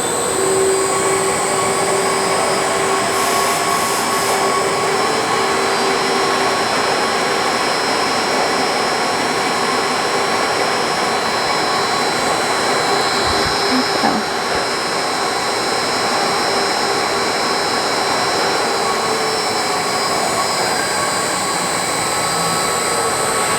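Electric drive of an industrial stainless-steel mixer running steadily under variable-speed control, a steady machine noise with a whine of several held tones, some shifting slightly in pitch as the speed changes. A brief knock about midway.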